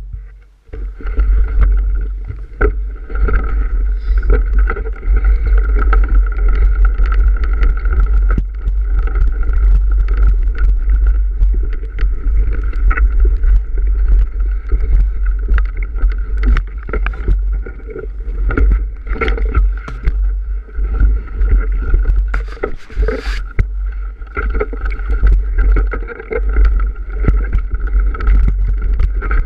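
Mountain bike riding fast over bumpy grass, heard through a camera mounted on the bike: heavy wind buffeting on the microphone and tyre rumble, with frequent knocks and rattles as the bike hits bumps.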